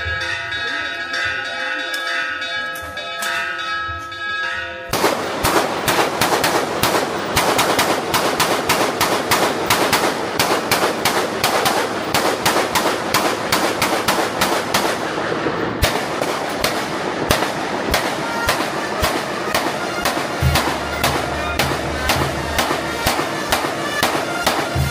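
Bells ringing, then about five seconds in a long, rapid run of firecracker bangs, several a second, starts suddenly and keeps going. This is festive pyrotechnics for an Independence Day celebration.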